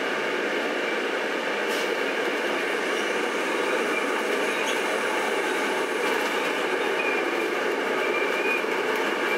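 Steady cabin noise inside a moving bus, rolling over concrete slabs, with the bus's body rattling and a few faint clicks.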